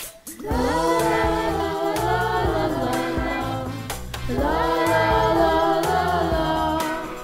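A group of voices singing together over a backing track with a low bass line, in two long sung phrases with a short break about four seconds in.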